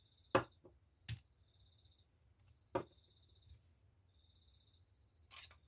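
Three short, sharp clicks from handling the parts of a Colt 1911 pistol: the first two close together, the third about two seconds later. A brief rustle comes near the end, over a faint high-pitched tone that comes and goes.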